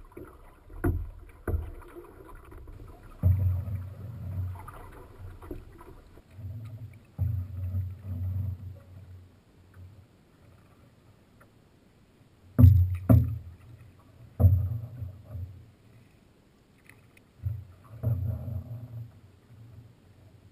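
Paddle strokes and water sloshing against the hull of a small paddled boat, coming in irregular low bursts a few seconds apart, with a sharp knock on the hull about twelve and a half seconds in.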